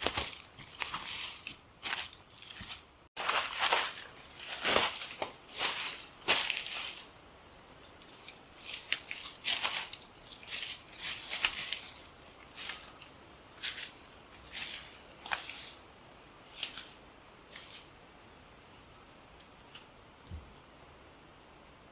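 Footsteps crunching on dry leaf litter and brushing through ferns, growing fainter and sparser as the walker moves away.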